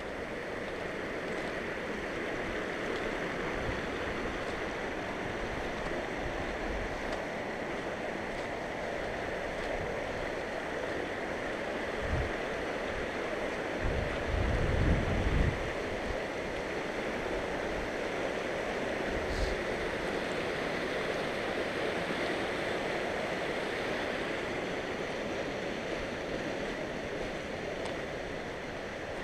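Mountain creek rushing steadily, with a few brief low rumbles near the middle.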